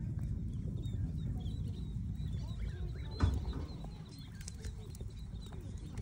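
Low rumble of wind on the microphone with faint bird chirps over it, and a single sharp knock about three seconds in.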